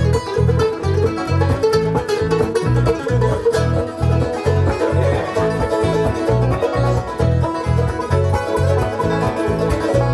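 Bluegrass band playing: banjo, mandolin, acoustic guitar and bass together, the bass on a steady beat of about two notes a second.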